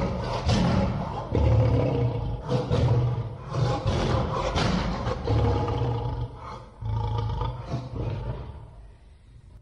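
Lion roaring as a sound effect: a series of deep roars, each about a second long, fading out near the end.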